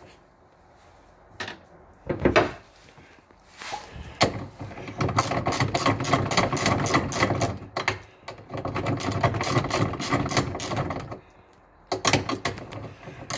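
Rapid metallic clicking and rattling in two long runs, about four to eight seconds in and again from about eight and a half to eleven seconds, after a few separate knocks: hand-tool work on the steering cable's retaining nut, working it loose.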